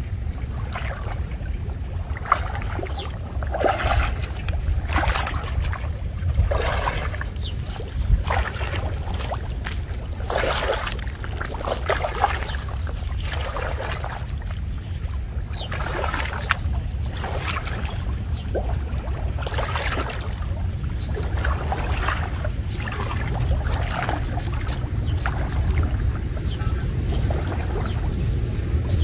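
Muddy shallow water splashing and sloshing around a person wading while gathering a cast net. Irregular splashes come thicker in the first two-thirds, over a steady low rumble.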